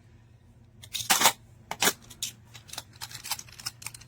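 Mini magnetic building tiles clicking and tapping together as they are handled and snapped onto one another, a run of sharp clicks starting about a second in, the loudest near the start of the run.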